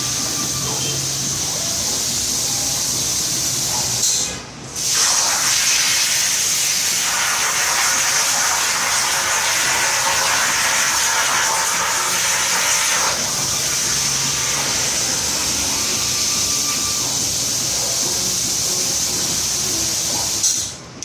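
Hypertherm Powermax 65 plasma cutter cutting: the steady, loud hiss of the plasma arc and air jet. It breaks off for about half a second roughly four seconds in, then resumes, and dips again at the very end.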